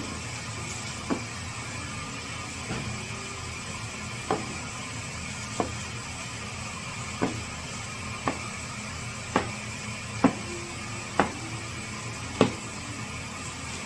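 A series of short sharp taps, about one every second or so at an uneven pace, over a steady low hum.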